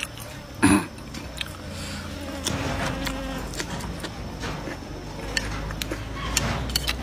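A person eating rice with chopsticks: small clicks of chopsticks against a wooden plate, plus chewing. Just over half a second in there is one short, loud breathy burst, like a cough or throat clearing.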